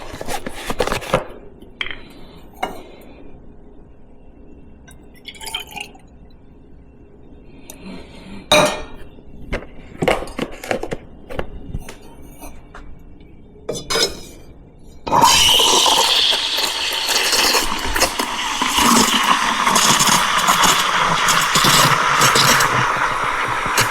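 Glass and ceramic clinks and knocks as a milk pitcher and cup are handled, then about fifteen seconds in the steam wand of a La Marzocco Linea Mini espresso machine opens with a sudden loud hiss and keeps hissing steadily as it steams milk.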